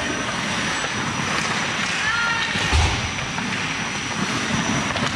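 Steady rushing noise of ice hockey play, as picked up by a referee's helmet-mounted GoPro: skates on the ice and air over the microphone. Brief distant shouts come about two seconds in, followed shortly by a low thump.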